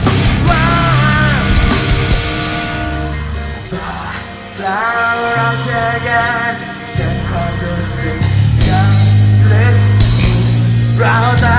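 Metal band playing live, with a sung lead vocal over electric guitars, bass and drums. From the uploader's note, the singer's voice was worn out that day. About four seconds in the band drops back to a held low note under the voice, and it comes back in full about four seconds later.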